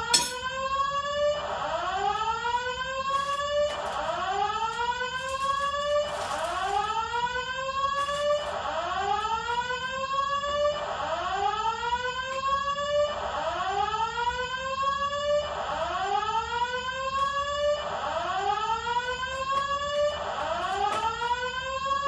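Building fire alarm sounding, a rising whooping tone repeated over and over without a break, set off for a fire drill.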